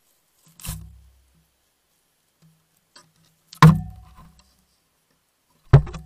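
Three sharp knocks, about a second, three and a half seconds and nearly six seconds in, each followed by a brief low ringing tone.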